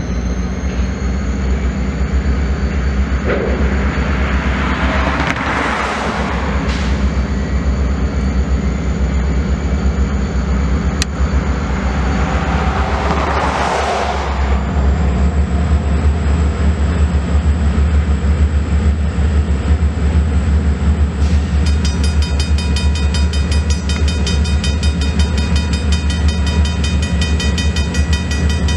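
Diesel locomotive engine running with a steady low rumble as a freight train approaches slowly. Two brief swells of passing noise come about five seconds in and again near the middle.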